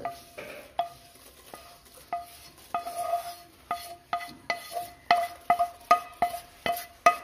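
Repeated metal-on-metal clinks with a short ringing tone as ghee-fried coconut pieces are knocked out of a metal pan into a steel bowl of batter. The clinks start about a second in, slowly at first, then come faster, about two a second, by the end.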